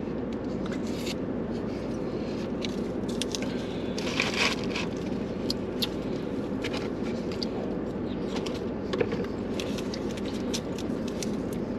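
Cardboard takeout boxes and a small food packet handled while eating: scattered crinkles, scrapes and clicks, busiest about four seconds in, with chewing. A steady low hum inside the car sits under it.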